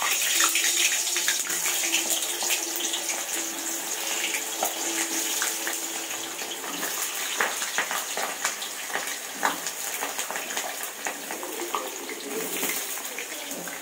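Potato pieces deep-frying in hot mustard oil in an aluminium kadai: a steady, loud sizzle with many small crackles and pops.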